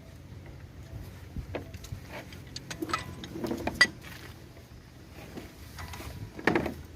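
Scattered metallic clicks and knocks of hand work on a car's front hub as the nut goes onto a new CV joint's axle end, with a sharp click about four seconds in and the loudest knock near the end.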